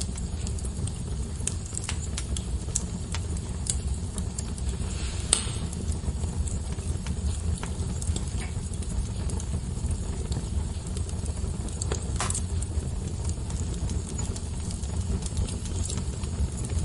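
Wood fire burning in a fireplace: a steady low rumble of flames with scattered crackles, and two louder pops, about five seconds in and about twelve seconds in.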